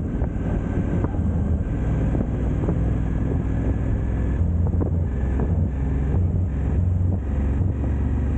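KTM twin-cylinder motorcycle engine running under way, with wind buffeting the helmet or bike-mounted microphone. The low engine note grows stronger from about halfway through.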